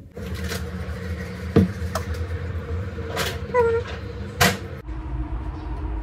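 Kitchen sounds at a frying pan on an induction hob: a steady low hum with four sharp clicks and knocks of utensils against the pan, the hum shifting lower near the end.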